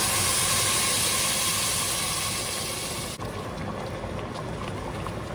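Green tomatillo salsa poured onto browned pork in a hot pot, sizzling and hissing loudly as the liquid hits the hot metal and oil. The sizzle eases slowly, then drops abruptly about three seconds in to a quieter steady sizzle.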